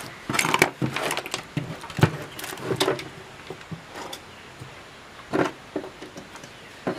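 Irregular clicks, knocks and rattles of hands handling a CRT TV's main circuit board and pushing wire connectors onto it, the loudest knock about two seconds in.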